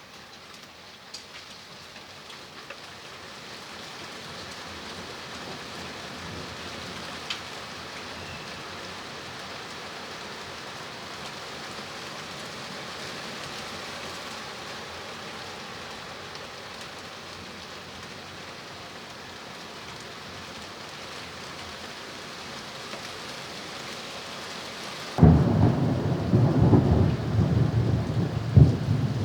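Steady rain falling, slowly growing louder; near the end a sudden loud thunderclap breaks in and rumbles on.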